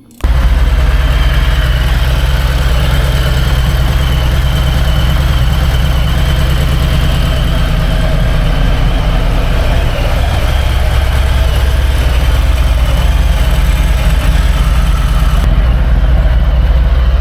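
Harley-Davidson motorcycle's V-twin engine idling steadily and loudly.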